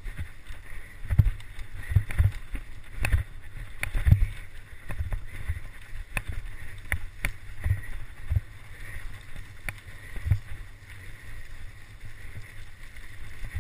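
Mountain bike running fast over a rutted dirt forest trail, heard from a camera on the bike: a steady low rumble, with frequent irregular knocks and rattles as the bike jolts over bumps.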